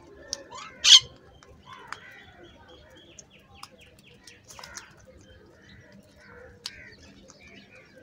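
House crows and common mynas calling while they feed: a loud sharp call about a second in, a quick run of short chirps around three seconds, and scattered calls and clicks.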